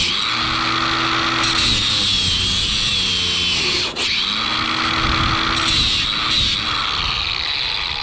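Angle grinder with an aluminium cutting wheel cutting through aluminium, the motor's pitch sagging and recovering as the wheel bites in, with a brief break about four seconds in.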